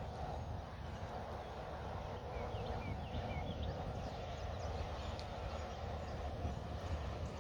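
Wind buffeting the microphone, a steady low rumbling noise, with a few short bird chirps about two to three seconds in.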